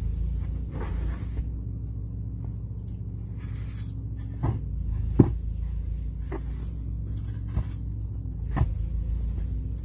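Snow shovel knocking and scraping in snow, about five sharp hits in the second half, over a steady low rumble.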